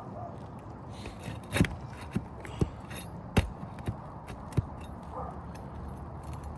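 Sharp, irregular taps and knocks of a hand tool working against brittle asphalt roof shingles, about six hits in three seconds, while the shingle's nails are being loosened.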